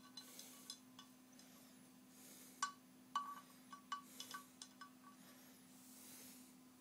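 Paintbrush clinking against the rim of a water pot: a quick, uneven run of light, ringing clinks starting a little past halfway through, with a few soft swishes of the brush being rinsed.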